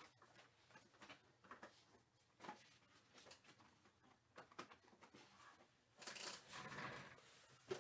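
Near silence with faint scattered clicks and light rustling, and a louder rustle about six seconds in that lasts over a second.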